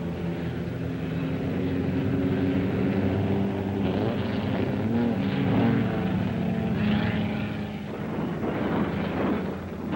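Several sprint car V8 engines running, their pitch rising and falling as the cars rev and pass.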